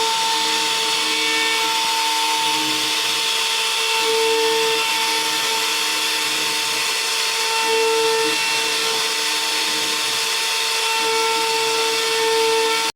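CNC router spindle cutting a design into gamari wood: a steady high whine over a hissing cut, with a lower hum that swells a few times.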